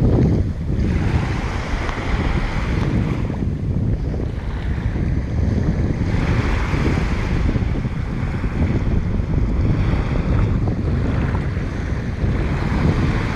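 Waves washing onto a beach, swelling and fading every few seconds, with strong wind buffeting the microphone in a constant low rumble.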